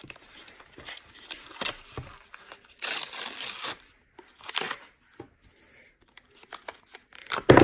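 Paper packaging being torn and peeled off a plastic slime tub: irregular tearing and crinkling, with a longer tear about three seconds in and a sharp, louder one near the end.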